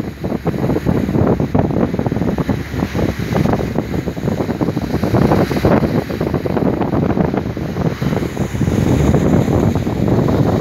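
Rough sea rushing along an oil tanker's hull and breaking over its side, mixed with strong wind buffeting the microphone. The noise is loud and dense, swelling and easing as the waves come.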